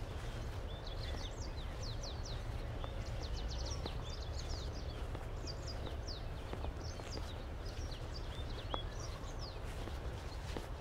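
Many small birds chirping, a dense run of short high chirps overlapping throughout, over a steady low outdoor rumble.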